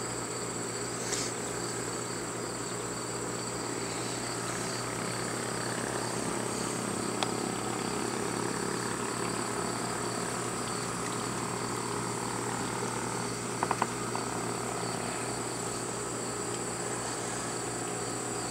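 Insects chirring steadily in a high, unbroken drone, with a few short clicks about two-thirds of the way through.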